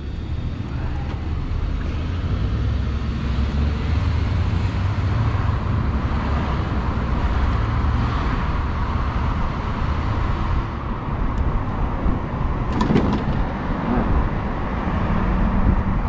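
Wind rushing over the microphone and road noise as an electric motorcycle pulls away and gathers speed, with passing traffic. There is no engine note; the rush grows fuller as the speed rises. A brief sharp click comes about three-quarters of the way through.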